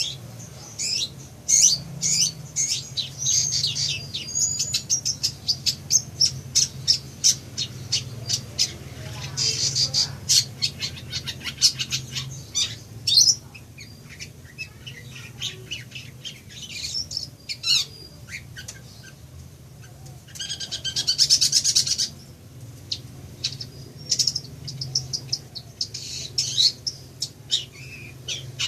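Long-tailed shrike (cendet) singing a rapid, varied run of sharp chirps and short whistles. The song is broken by a harsh buzzing rattle about ten seconds in and again around twenty-one seconds. A faint steady low hum lies underneath.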